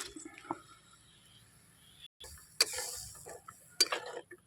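A metal utensil clinking and knocking against a cooking pot: a few sharp knocks, starting a little past halfway in.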